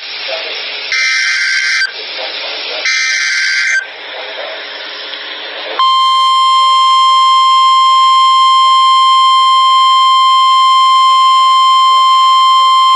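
NOAA Weather Radio Emergency Alert System signal. First come two short, buzzy SAME digital header bursts about two seconds apart, with radio hiss between them. About six seconds in, the steady 1050 Hz warning alert tone starts and holds, marking a warning about to be broadcast.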